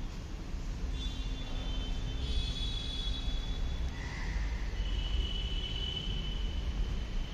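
Outdoor ambience: a steady low rumble with a few faint, high, thin tones coming and going over it.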